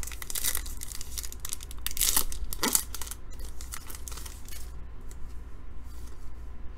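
Wrapper of a baseball card pack being torn open and crinkled by hand, in quick rough rips that are loudest in the first three seconds, then fainter rustling as the cards are pulled out.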